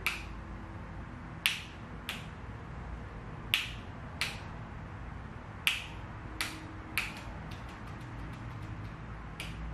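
Plastic handlebar on/off switch for an LED light bar being flicked on and off, sharp clicks mostly in pairs, then a quick run of lighter clicks near the end.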